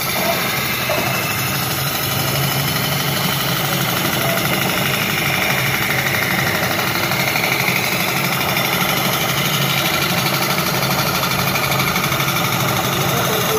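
Steel sickle blade being sharpened against a spinning motor-driven abrasive disc: a steady motor hum under a continuous grinding hiss of metal on the wheel.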